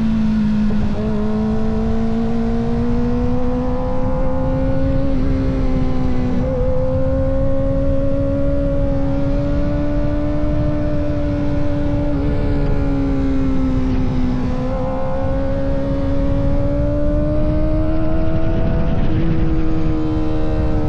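Kawasaki ZX-4RR's 399 cc inline-four running at high revs while riding, its pitch holding high and drifting slowly up and down, with a few brief dips, about four over the stretch, with wind rush on the microphone.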